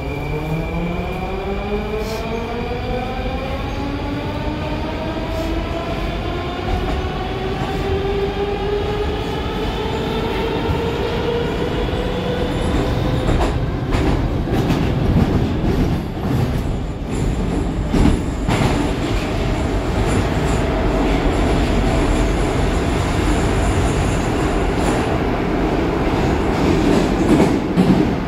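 Moscow Metro Moskva-2019 train heard from inside the car as it pulls away. Its traction motors give a whine that climbs steadily in pitch for about twelve seconds as the train accelerates, then settle into steady running noise of wheels on rail in the tunnel, with occasional clicks.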